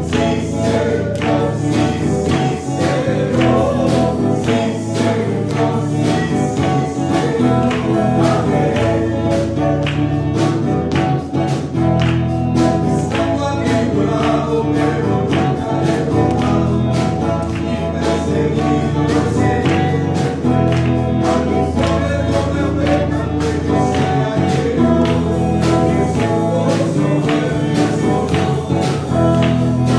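Spanish-language Christian worship song: singing over a band backing with a steady beat, the lead sung live into a handheld microphone.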